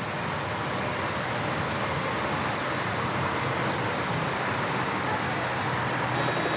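Steady motor-vehicle noise from the race convoy of motorbikes and cars travelling with the riders on the road, an even rushing noise with no single sound standing out.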